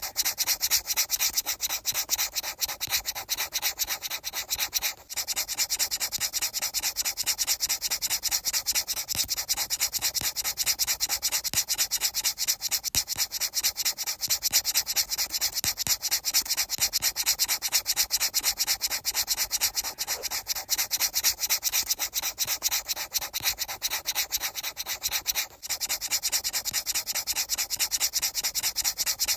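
Fast, even rubbing or scratching strokes, many a second, dropping out for an instant twice.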